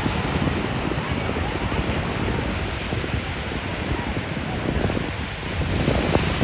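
Ocean surf washing, with wind buffeting the microphone in a steady rough roar.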